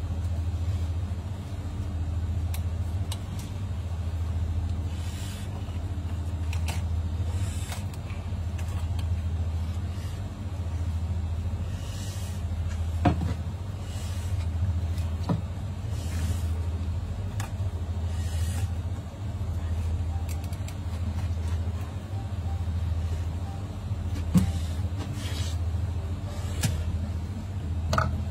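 Steady low machinery hum, with a few sharp knocks on the plastic cutting board as a fish is filleted with a heavy knife.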